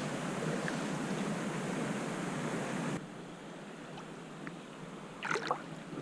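Steady rush of flowing creek water, which drops suddenly to a quieter wash about three seconds in, with a brief faint sound near the end.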